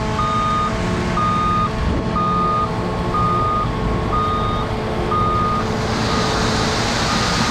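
A truck's reversing alarm beeping about once a second over a diesel engine running steadily. From about six seconds in, a rushing hiss rises under the beeps.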